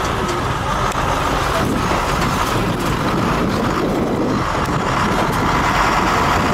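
Steady engine and driving noise of an open-topped safari vehicle, a continuous low rumble with no clear breaks.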